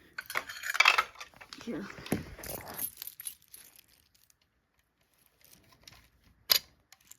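Rustling and handling noise from a plastic break-glass fire alarm call point being handled, then a single sharp click about six and a half seconds in.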